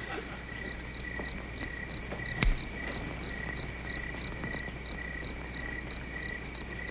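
Crickets chirping steadily, about three chirps a second. A single sharp click comes about two and a half seconds in.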